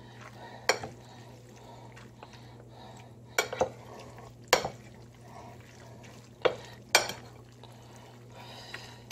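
A metal fork and a wooden spoon tossing sauced pasta in a ceramic casserole dish: about six sharp clinks and knocks as the utensils hit the dish, with quieter stirring between them.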